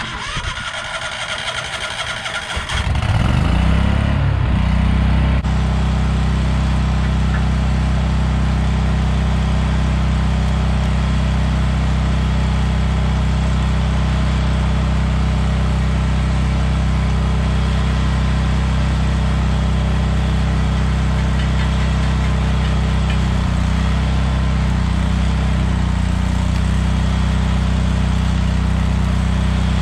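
Engine of an engine-driven welding machine starting about three seconds in, then running steadily.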